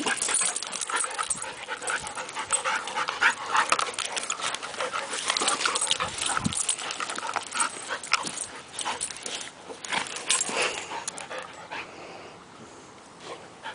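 A Rottweiler mix and a larger shepherd-type dog play-fighting: excited dog vocalizations, yips and scuffling in irregular bursts, dying down near the end as they break apart.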